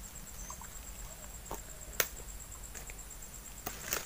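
Night swamp ambience: a steady, pulsing, high-pitched insect trill, with a few short faint chirps. Over it come several sharp clicks, the loudest about two seconds in and a quick cluster near the end.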